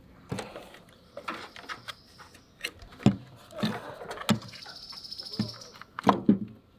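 Handling knocks and bumps as a plastic soft-start module is worked into place against an RV air conditioner's sheet-metal housing and copper refrigerant lines, and pressed onto double-sided tape. The knocks are irregular, with a scratchy rustle a little under halfway through.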